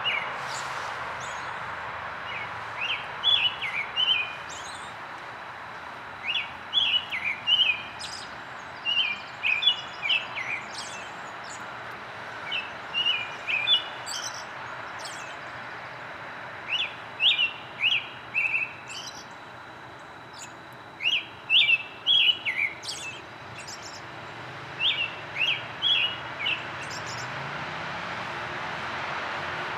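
American robin singing: short whistled phrases that bend up and down, strung in groups of three to five, with a pause of a second or two between groups, over a steady background hiss.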